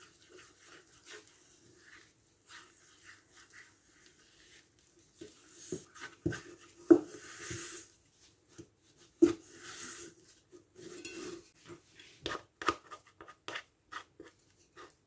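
A wooden spoon stirring flour and liquid into a sticky strudel dough in a stainless steel bowl, scraping and knocking against the metal. It is faint at first and gets louder from about five seconds in, as the dough stiffens.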